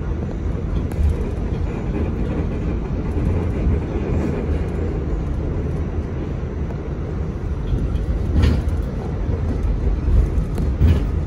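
Steady low rumble of an R46 subway car running along the track, heard from inside the car, with two sharper knocks near the end.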